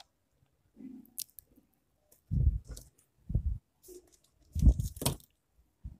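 Soft handling noises of a plastic scale and set square being shifted and pressed on a drawing sheet: a few short, dull bumps and brief scuffs, the loudest a little before five seconds in.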